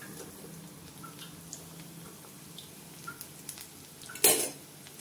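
Cabbage manchurian balls deep-frying in hot oil in a kadhai: a steady crackling sizzle with scattered small pops. About four seconds in there is one loud metallic clatter of the slotted spoon against the pan.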